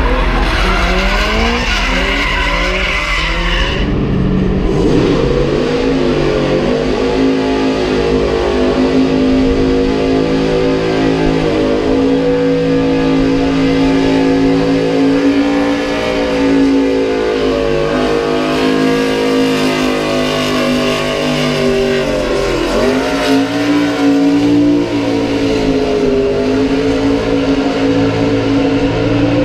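Drifting cars sliding with engines revving up and down for the first few seconds. Then a car engine is held at high, nearly steady revs during a tyre-smoking burnout, wavering slightly, with the revs dipping and picking up again about 23 seconds in.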